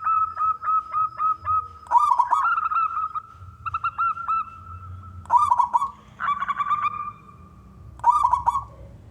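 Zebra dove cooing: a quick run of short coos on one pitch, broken about every three seconds by a louder rolling trill. The calls die away near the end.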